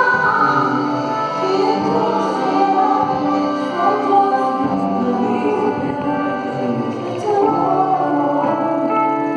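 Live gospel worship singing: a small group of male and female vocalists singing together into microphones, with keyboard accompaniment holding long chords underneath.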